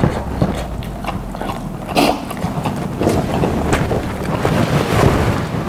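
A person breathing hard and puffing air out through an open mouth, with the breath blowing on the microphone as a low rumble and a sharper puff about two seconds in. It is the panting of a mouth burning from an extremely hot chili-sauced chicken tender.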